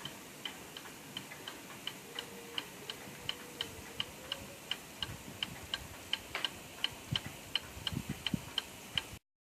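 1881 Ansonia marble mantel clock's open escapement ticking steadily, about three ticks a second in an uneven tick-tock. A few soft low thumps come near the end, and the sound cuts off shortly before the end.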